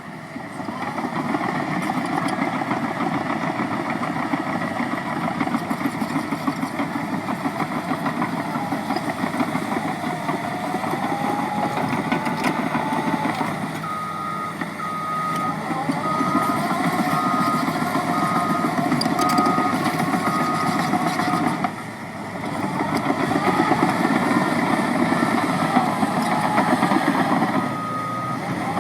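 Caterpillar 963D track loader's diesel engine working, its pitch rising and falling as it revs up and down. Its reversing alarm beeps about once a second for several seconds about halfway through, and again near the end as it backs up.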